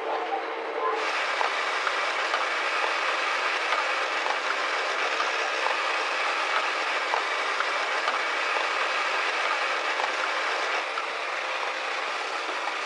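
Banknote-handling machinery running: a steady hiss with many small rapid clicks of notes and parts moving through. The sound turns suddenly brighter and wider about a second in.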